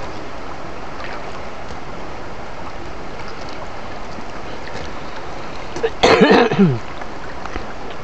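Shallow rocky stream running steadily around the feet. About six seconds in, a person clears their throat loudly for under a second.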